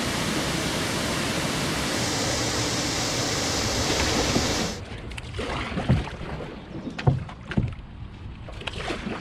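Steady rush of water tumbling through rocky rapids and pouring over a dam spillway, cutting off abruptly about halfway through. Then quieter canoe paddling on still water, with a few sharp paddle splashes and knocks.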